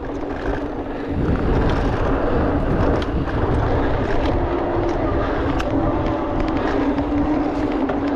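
Riding a mountain e-bike fast down dirt singletrack: wind rushing over the action camera's microphone and knobby tyres rumbling on the dirt, with a steady low hum underneath and a few light clicks and rattles from the bike.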